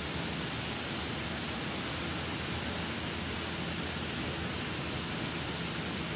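Steady, even hiss of an electric standing fan running, with no knocks or tool sounds.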